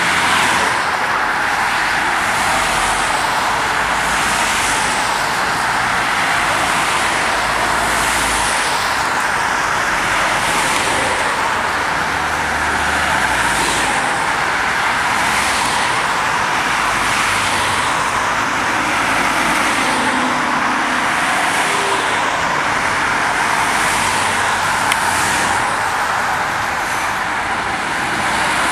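Steady, continuous road traffic noise with no single vehicle standing out.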